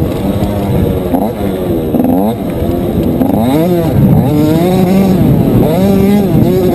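Motocross bike engine revving hard as it is ridden, its pitch climbing and dropping back several times with throttle and gear changes, then held higher and steadier near the end.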